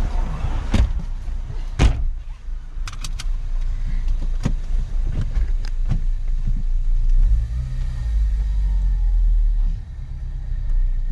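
2016 Ford Focus ST's turbocharged four-cylinder engine, heard from inside the cabin, running as the car moves off. The engine is freshly fitted with a Torque Solutions motor mount. A few sharp clicks and knocks come in the first several seconds, the loudest about two seconds in. The engine grows louder about seven seconds in, dips briefly near ten seconds as with a gear change, then builds again.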